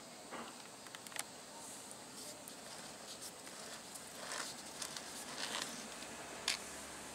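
Faint handling sounds of a small plastic-potted hawthorn being turned by hand: scattered light clicks and short rustles over a steady hiss, with the sharpest click about six and a half seconds in.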